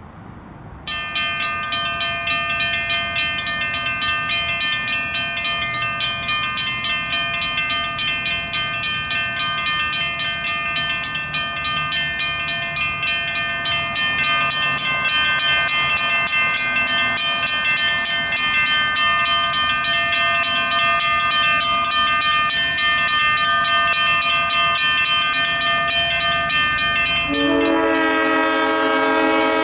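Two mechanical railroad crossing bells, a WRRS and a WCH, start ringing about a second in with rapid, steady strikes as the crossing signals activate. Near the end, a train horn sounds a long steady blast over the bells.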